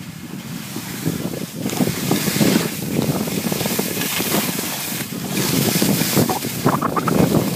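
Wind rushing over the phone's microphone while skiing, mixed with skis hissing and scraping over packed snow. The rush swells about two seconds in and stays loud.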